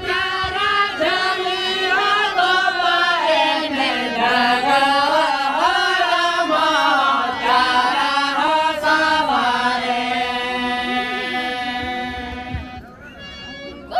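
A group of men singing a Santali folk song together in unison, with a harmonium accompanying them. They hold long notes toward the end, then the singing drops away about a second before the end.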